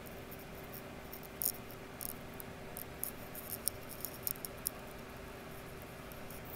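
Tektronix RM585A tube oscilloscope's cooling fan running with a steady low hum, the scope powered on its heater supply only. Irregular sharp, high-pitched ticks sound over it and stop about two-thirds of the way through.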